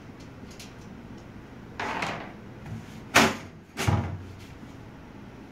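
Side panel of a desktop computer case being slid back and pulled off: a scrape about two seconds in, then two loud clunks about a second apart.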